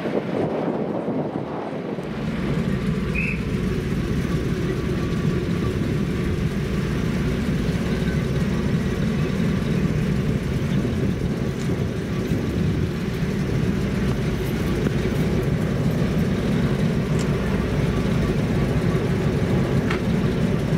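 Class 08 diesel shunter's English Electric six-cylinder engine idling steadily.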